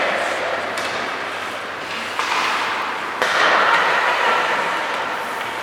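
Ice hockey game noise in an echoing rink: a steady wash of sound with a few sharp knocks, swelling louder about three seconds in.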